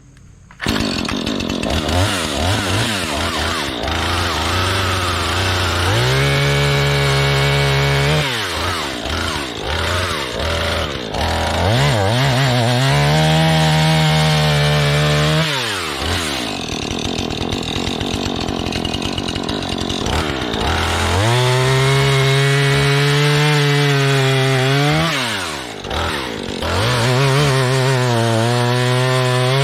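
Husqvarna 440e two-stroke chainsaw starts up loud about half a second in and runs. It speeds up to a high whine four times, dropping back to a low rough idle between.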